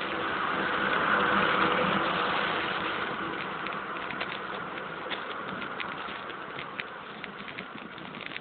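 Road traffic heard from a moving bicycle: a motor vehicle passes, swelling louder about a second in and fading over the next two seconds. Under it is a steady rush of wind and road noise, with scattered light clicks later on.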